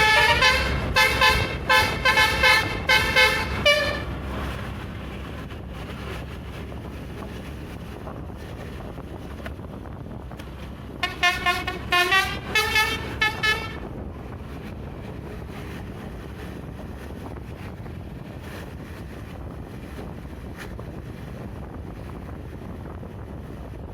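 Tour bus 'basuri' telolet horn, a multi-tone musical air horn, playing rapid runs of short melodic notes for the first four seconds and again about eleven seconds in, over steady road and engine noise.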